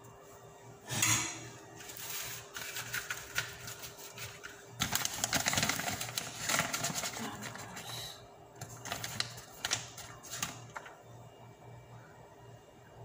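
Plastic bag of shredded mozzarella crinkling and rustling in irregular bursts as cheese is pulled out by hand, with light clicks and taps; the loudest stretch is around five to seven seconds in. A faint steady hum runs underneath.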